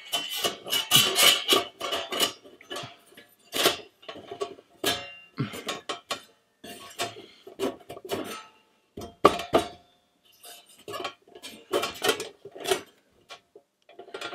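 Metal panels of a Skotti portable gas grill clinking and clattering as they are slotted together: an irregular run of knocks, some with a short metallic ring.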